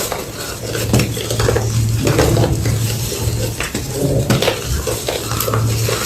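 Homemade gym chalk block being crushed: a steady run of crisp, crackling crunches, one after another.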